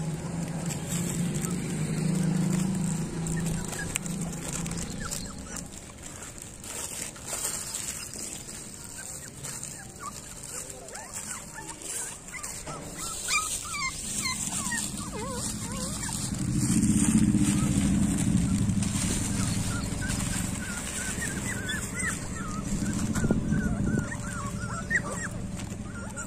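Puppies whimpering and crying in short, high, wavering calls, heard mostly in the second half. Underneath runs a low drone that swells twice.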